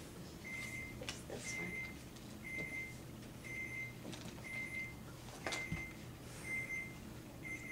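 A short, high electronic beep on one pitch, repeating steadily about once a second, with a few light knocks and rustles between the beeps.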